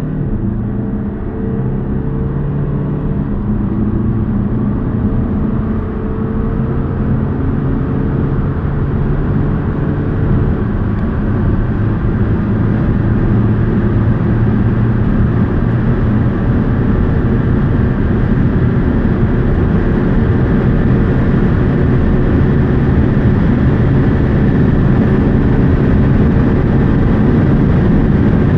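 Audi A5 2.0 TDI inline-four turbodiesel pulling at full throttle, heard from inside the cabin, with the S tronic dual-clutch gearbox making three quick upshifts from third to sixth gear in the first half. After that the engine note holds in sixth while wind and road noise grow louder with rising speed.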